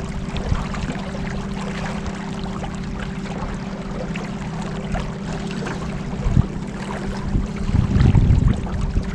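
Boat motor running steadily while under way, a constant hum under rushing water and wind noise, with a louder low buffet near the end.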